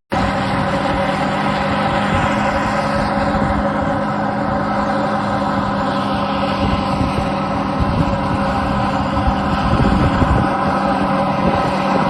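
A heavy farm machine's engine running at a steady speed, a constant droning hum over a rush of mechanical noise, starting suddenly at a cut.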